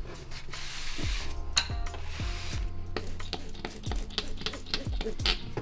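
A few short hissing spritzes of K&N air filter cleaner from a spray bottle onto a dirty cotton air filter, over background music with a regular low beat.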